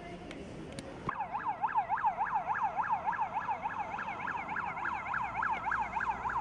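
Electronic siren sounding in a fast yelp, about four rapid rises and falls in pitch a second. It starts abruptly about a second in.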